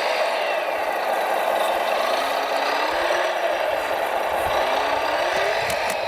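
Radio-controlled model trucks running: a steady whir with thin motor whines that glide up in pitch twice, once around the middle and once near the end, and a few faint clicks near the end.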